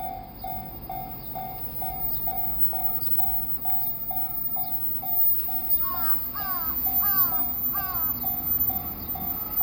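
Japanese railway level-crossing alarm ringing its steady electronic bell, about two strokes a second. A crow caws four times in the middle.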